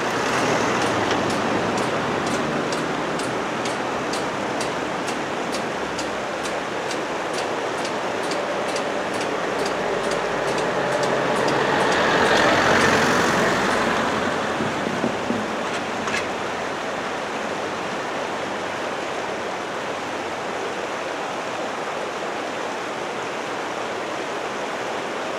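A Fiat 500 car drives past close by, its sound rising just after the start, over a steady rushing background noise. A regular faint ticking fades out over the first half, and a second swell of passing traffic comes about twelve seconds in.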